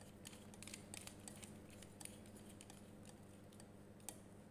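Faint, scattered clicks of a tester screwdriver working the terminal screw of a single-pole miniature circuit breaker, clamping a wire in the output terminal; the sharpest click comes near the end.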